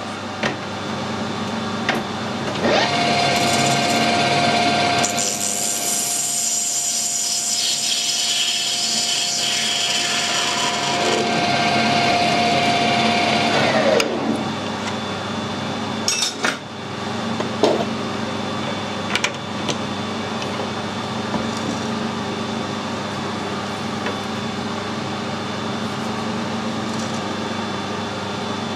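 Metal lathe running, with a steady motor and gear hum throughout. A higher whine with hiss above it comes up about three seconds in and slides away at about fourteen seconds, as the spindle speeds up and then runs down. A few sharp clicks follow.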